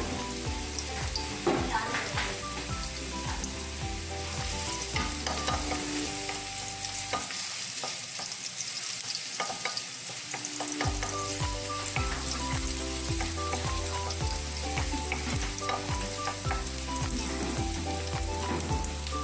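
Chopped onions sizzling in hot oil in a wok, stirred with a wooden spatula that scrapes and knocks against the pan now and then.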